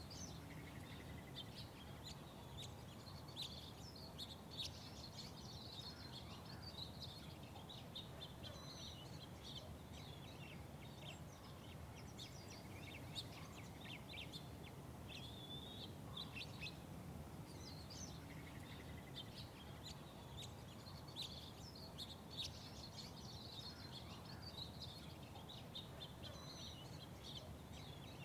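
Small songbirds chirping many times in quick, irregular bursts, over a steady low rumble of background noise. A short buzzy trill comes about a second in and again later.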